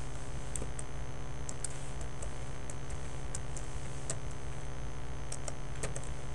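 Computer keyboard keystrokes as a password is typed: a dozen or so light, irregularly spaced clicks over a steady low hum.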